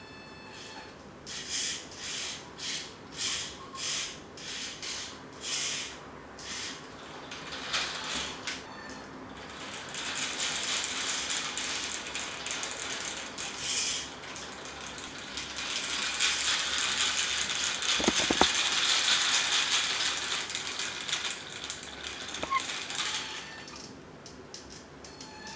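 Mechanical clicking and ratcheting from hand work on the 3D-printed truck's parts: a run of short rattling strokes about two a second, then a longer, steadier rasping stretch.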